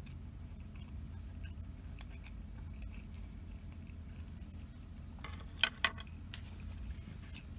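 Steady low hum in a semi-truck cab with faint small eating sounds. About five and a half seconds in, two sharp clicks come a moment apart, as a plastic spoon knocks against a plastic takeout container.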